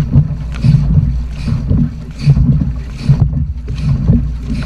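Dragon boat paddles dipping and pulling through the water in a steady stroke rhythm, a splash and surge about every three-quarters of a second, over a constant rumble of rushing water.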